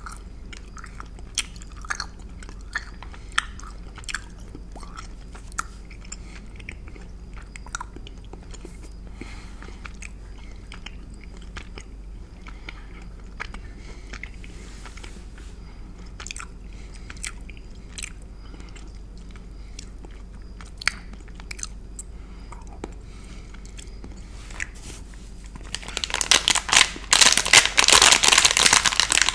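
Close-miked chewing of a caramel chew, heard as sparse sharp mouth clicks. Near the end, a clear plastic candy wrapper is crinkled loudly and continuously in the hands.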